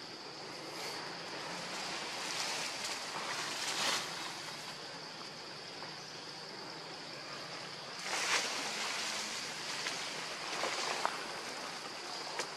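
Forest ambience: a steady rushing background with a constant high insect drone. Leaves and branches rustle in two short swells, about three to four seconds in and again about eight seconds in, as young macaques climb.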